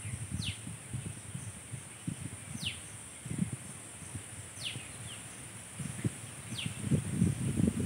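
A steady high insect drone, with a bird's short falling whistle repeated four times, about every two seconds. Low rumbling noise grows louder near the end.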